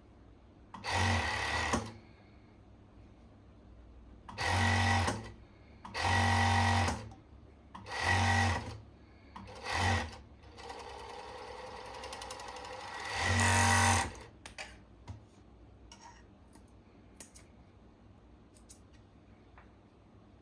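Gemsy industrial overlock (serger) sewing machine stitching in six short runs of about a second or less. Before the last run there is a softer stretch of steady running. A few light clicks follow as the work is handled.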